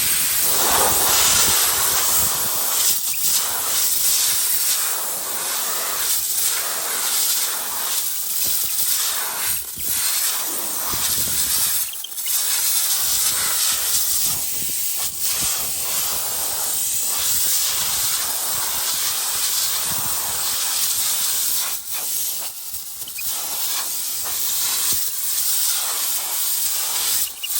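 A steady hiss of compressed air blowing dust out of a combine's air filter, cut off briefly a few times as the air is released.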